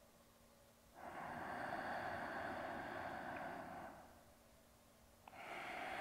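A woman breathing deeply and audibly: one long breath starting about a second in and lasting some three seconds, then another beginning near the end.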